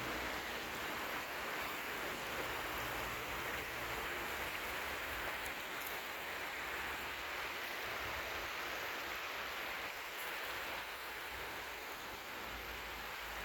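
Steady rushing of flowing water, a stream or brook running.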